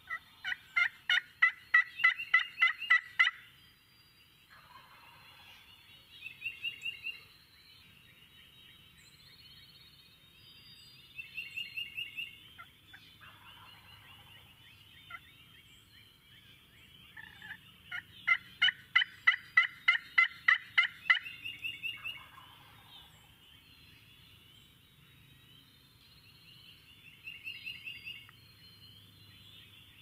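Turkey calls: long runs of evenly spaced notes, about three a second, loud in the first few seconds and again a little past halfway, with fainter runs in between.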